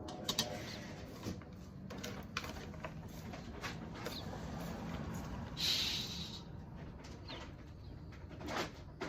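Kitchen work: scattered light clicks and knocks of utensils and dishes over a low steady hum, with a short hiss about six seconds in.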